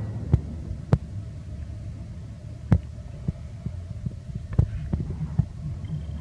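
Wind rumbling on an outdoor microphone, with about ten sharp clicks and taps scattered irregularly through it.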